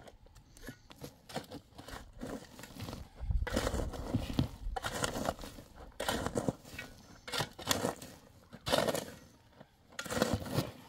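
Irregular knocking and scraping, a string of short knocks with rougher stretches of a second or so between them.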